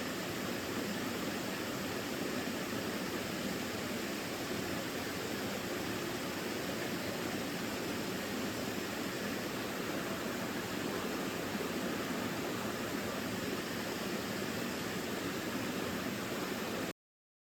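Stream water running: a steady, even rush that cuts off suddenly near the end.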